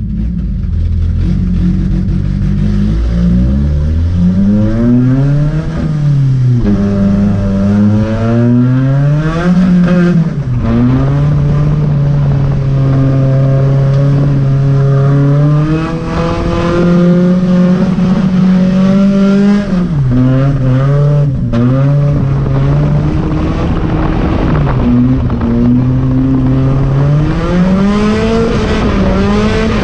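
Volvo drift car's engine heard from inside the open, windowless cabin, revving up and down as the car is driven sideways through the corners. The pitch climbs over the first few seconds, dips and rises again twice, holds steady for several seconds in the middle, then rises and falls a few more times near the end.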